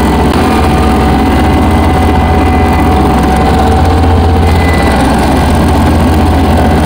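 Kubota F2100 front-deck riding mower running steadily while mowing tall, overgrown grass: a loud, even engine hum with the deck's blades cutting.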